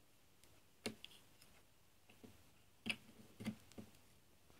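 A few light clicks and knocks as a plastic glue stick and its cap are handled on a wooden desk. There is one click about a second in and a quick cluster of three near the end.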